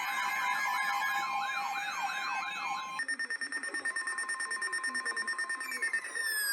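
Electronic siren and alarm tones: a fast warbling wail over steady tones, switching abruptly about halfway through to a rapidly pulsing steady tone, with a tone falling in pitch near the end.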